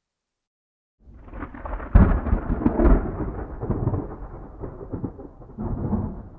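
Thunderclap: after a second of silence a low rumble builds, then a sharp crack about two seconds in is the loudest part. The thunder rolls on in uneven peaks and slowly fades, swelling once more near the end.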